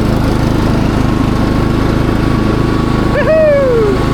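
Cox Stockman ride-on mower's engine running steadily at throttle. About three seconds in, a short pitched call cuts in and glides down in pitch.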